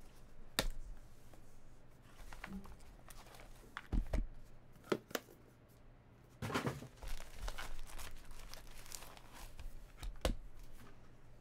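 Hands opening a trading-card box and taking out its contents: scattered knocks and clicks of the cardboard box and a plastic card holder. From about six and a half to nine seconds in comes a stretch of rustling and crinkling of packaging.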